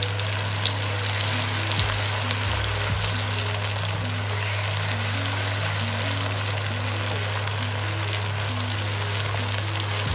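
Onions, tomatoes and ginger–green chilli paste sizzling steadily in hot oil in a karahi as they are stirred.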